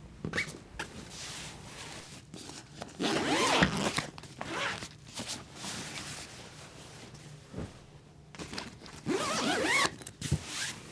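A zipper pulled twice, each pull lasting about a second, with small handling clicks and rustles in between.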